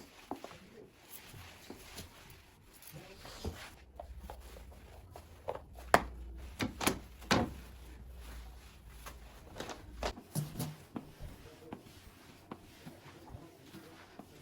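Light household knocks and clicks, a few sharper ones around the middle, over a low hum that runs from about four to ten seconds in.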